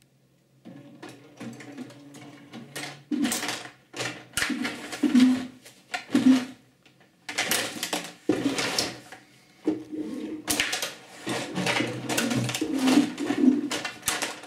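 Rod table hockey in play: rapid clicking and clattering as the rods are pushed and spun, the plastic players strike, and the puck knocks about the table. The robot's electric motors whine in short bursts in between. It starts about half a second in after a near-silent moment and stays busy, with the loudest knocks around the middle.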